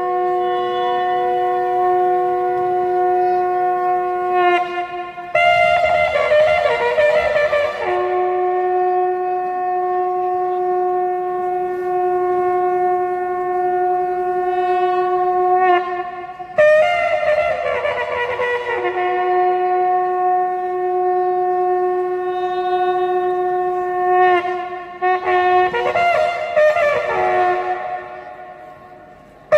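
Wind instruments of a military band playing long held notes, with short runs of changing notes in between. They fade away near the end.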